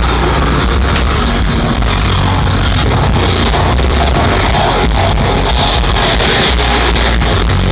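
Loud rock music playing continuously, with a steady beat and strong bass.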